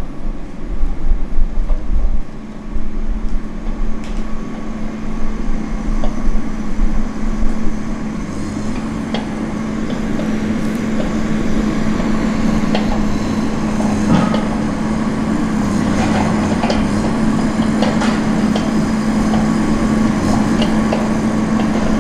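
Diesel engine of a Tigercat 234 knuckleboom log loader running steadily under load while it swings pine logs onto a log truck, with scattered knocks and clatter of logs against one another and the trailer. Heavier, uneven thudding in the first several seconds, then a steadier engine sound.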